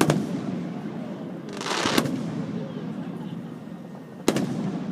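Fireworks aerial shells bursting: a sharp boom at the start, a short hiss ending in a crack about two seconds in, and another loud boom with a rolling echo near the end.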